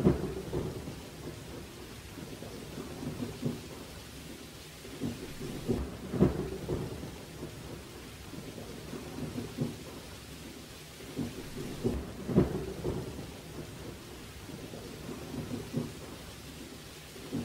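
Wind buffeting an outdoor microphone: a low rumble in irregular gusts, the strongest at the start, about six seconds in and about twelve seconds in.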